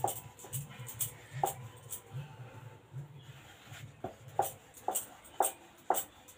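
Wooden rolling pin working roti dough on a wooden board: a short knock with each back-and-forth stroke, about two a second, sparser in the middle.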